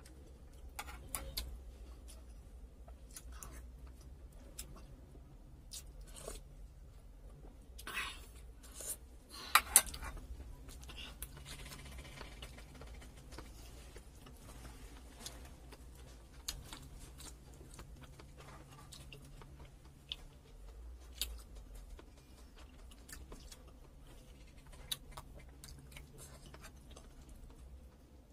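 Close-miked eating sounds of a person eating with bare hands: chewing, and fingers picking apart boiled chicken and rice. Scattered soft clicks and smacks run through it, the loudest a pair of sharp clicks about ten seconds in.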